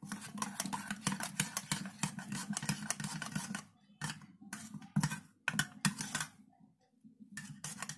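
A metal spoon stirring a wet rice-flour paste in a white ceramic bowl: quick clicking and scraping against the bowl, dense for the first three and a half seconds, then a few scattered taps.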